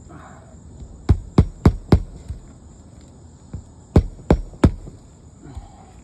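Hammer driving roofing nails through a shingle: four quick blows about a second in, then three more about three seconds later.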